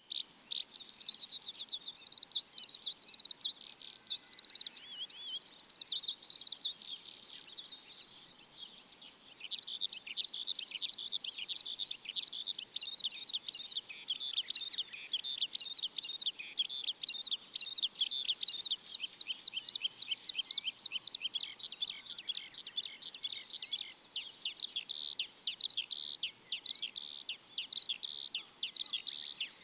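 Birds chirping, a dense and continuous chatter of many quick, high chirps overlapping one another.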